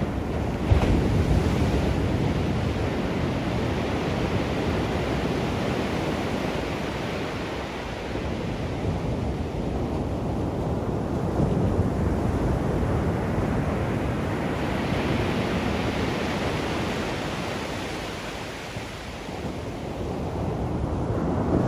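Ocean surf breaking and washing up the shore in a continuous wash that swells and eases. It builds to a stronger surge in the second half, drops briefly, and rises again near the end.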